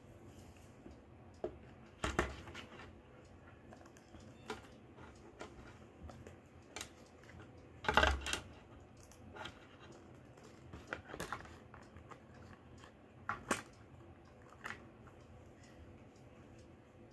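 Hard plastic robot-kit parts clicking and tapping as they are handled and trimmed with a hobby knife: scattered light clicks, with louder knocks about two and eight seconds in.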